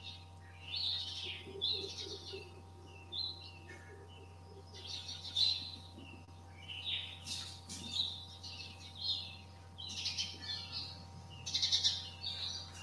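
Marker squeaking on a whiteboard in short, irregular high-pitched strokes as words are written out by hand.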